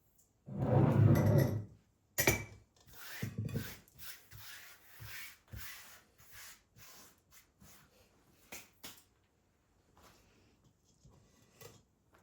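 Household objects being handled: a heavy sliding rumble lasting about a second, then a sharp knock and a run of lighter clicks and rustles.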